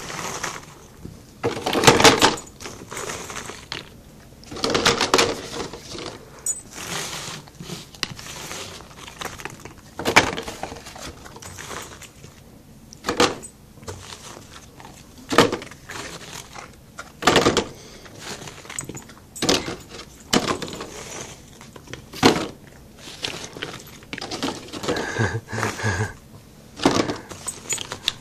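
Hard bone-shaped dog biscuits clattering and crunching: short, sharp clicks at irregular intervals, about one every second or two.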